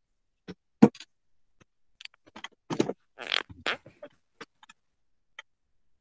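Scattered clicks, knocks and rustles from a smartphone being handled, the loudest a sharp knock about a second in. Heard through a video call's choppy, gated audio, with silence between the sounds.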